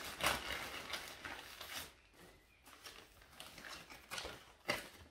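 Plastic courier bag rustling and crinkling as a sheathed knife is pulled out of it, in irregular bursts, busiest in the first two seconds and again briefly near the end.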